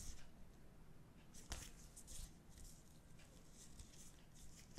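Faint rustling and sliding of paper sticker sheets shuffled between gloved hands, with a sharper paper flick about a second and a half in.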